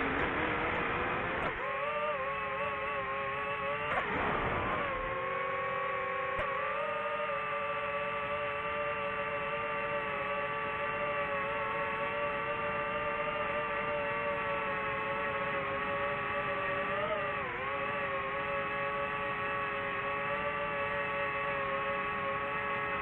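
DJI FPV drone's motors and propellers whining in flight, holding a steady pitch with a brief dip about seventeen seconds in. There are gusty rushes of noise in the first few seconds.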